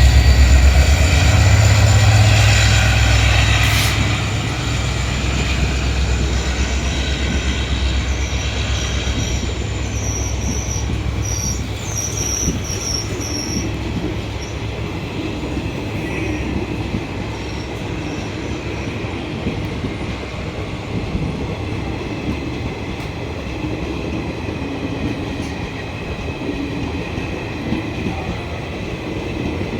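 Diesel locomotive of a departing train, its engine hum loud at first and fading after about four seconds as it moves off. The coaches then roll past in a steady rumble, with wheels clacking over rail joints and brief high wheel squeals about ten seconds in.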